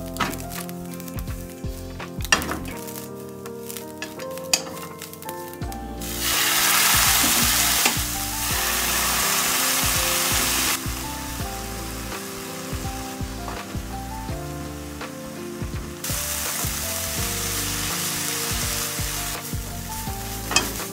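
Food sizzling and being stirred in a hot frying pan: dried shredded daikon and dried baby sardines stir-frying in sesame oil. Light taps and clicks for the first few seconds, then a loud sizzle comes in about six seconds in and steps up and down in level several times.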